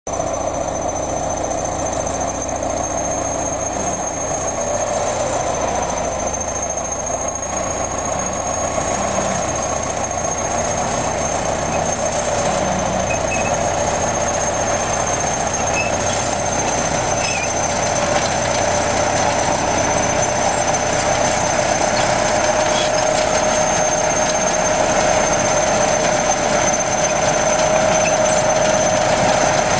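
Crawler bulldozer running under load as it pushes earth, its diesel engine and tracked running gear making a continuous sound with a steady high whine through it. It grows a little louder past the middle as the machine comes closer.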